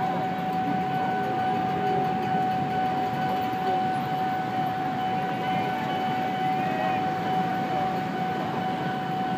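KA Pangrango passenger train rolling across a level crossing over a steady wash of congested road traffic. A single steady high tone is held throughout, with a few short rising-and-falling chirps.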